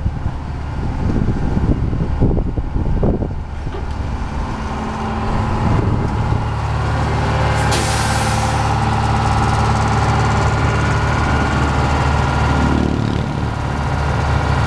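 Diesel engine of a rail ballast regulator running close by, uneven with knocks for the first few seconds and then steady. A short hiss of released air comes about eight seconds in.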